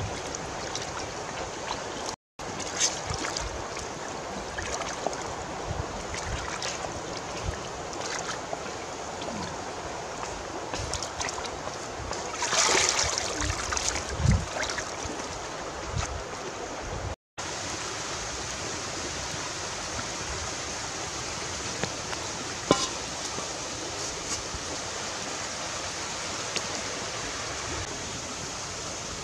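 Shallow river water running over stones, with splashing and sloshing as a basket of water snakes is rinsed and carried through the water. There is a louder swell of splashing about halfway through.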